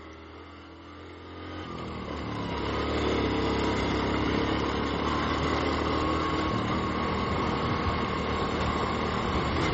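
Suzuki FB motorcycle engine running while riding: low at first, then building up over the first few seconds as the bike gathers speed, and holding a steady note after that.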